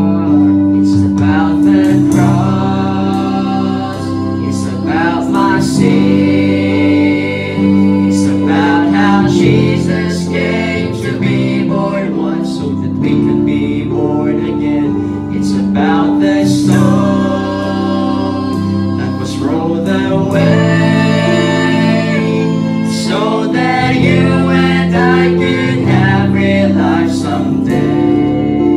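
Live worship band playing a gospel song: several young voices singing together over keyboard, guitars and a drum kit keeping a steady beat.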